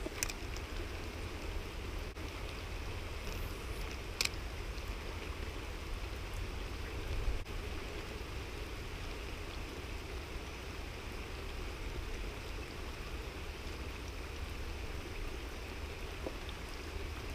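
Heavy rain falling steadily, an even hiss over a constant low rumble, with a single sharp click about four seconds in.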